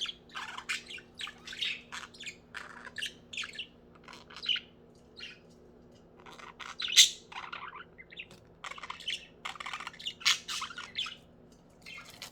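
Pet budgerigars chirping and chattering in a quick run of short, high calls. There is a brief lull in the middle, and one louder call comes about seven seconds in.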